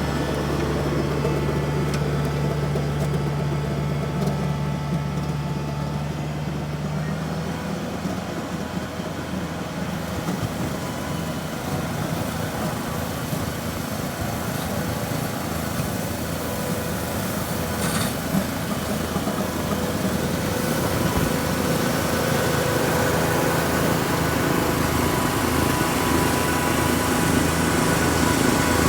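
Farm tractor engine running steadily; about seven seconds in its even hum changes to a rougher, noisier sound.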